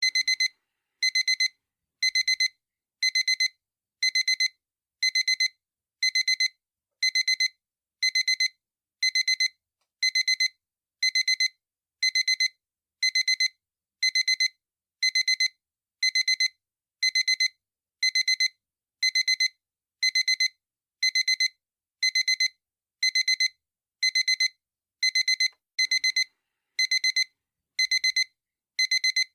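Digital alarm clock beeping: short bursts of rapid high-pitched beeps, repeating evenly about once a second.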